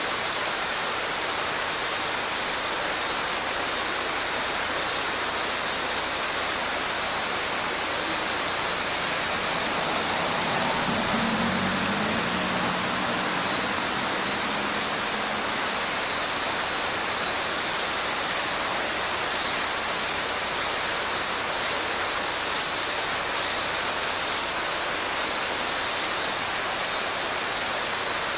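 Mountain stream water rushing steadily over rocks, a constant even roar. About ten seconds in, a faint low hum rises, holds for a few seconds, then fades.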